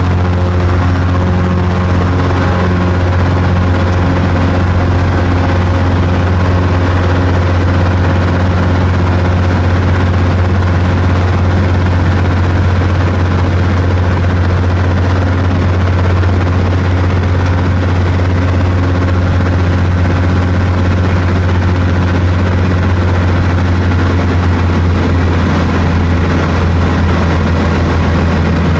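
Single-engine high-wing light airplane in flight, heard from inside the cabin: the engine and propeller make a steady, unchanging low drone with a few steady higher tones over it.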